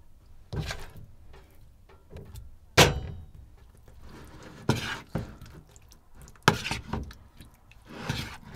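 A metal spoon knocking and clinking against a bowl while raw steak chunks are stirred into a marinade, about seven separate knocks. The loudest comes about three seconds in and rings briefly.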